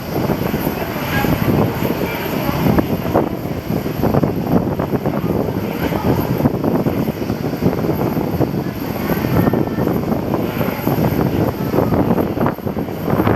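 Airliner engines running, heard through strong, gusty wind buffeting the microphone.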